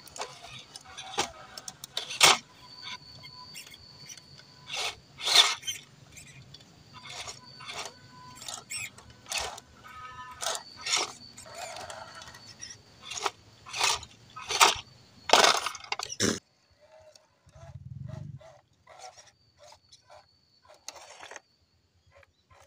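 Scale RC crawler trucks (WPL C24 pickup and MN99S Defender) climbing over rock: a thin, steady whine of the small electric motors and gearboxes, with repeated sharp scrapes and knocks as the tyres and chassis scrabble on the stone. About two-thirds of the way through the sound drops away abruptly, leaving only faint clicks.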